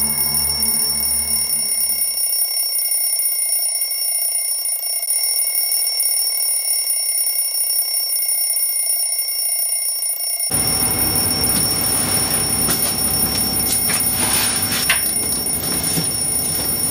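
A steady, high-pitched electronic ringing tone, several pitches held at once, which cuts off suddenly near the end. From about ten seconds in, room noise and soft rustling sit beneath it.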